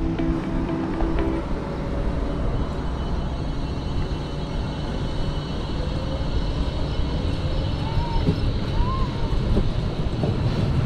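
Background music that ends about a second and a half in, then a steady low rumble of wind and road noise from a bicycle being ridden, picked up by a handlebar-mounted camera.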